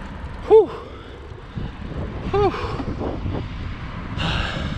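Steady outdoor rumble of wind and traffic, with two short rising-and-falling vocal calls about half a second in and about two and a half seconds in, and a brief hiss near the end.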